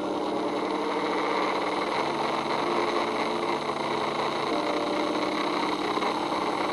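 Electric motor spinning up the cardboard fan blades of a homemade jet-engine model: a steady, engine-like whirring hum that grows slightly louder as the blades speed up.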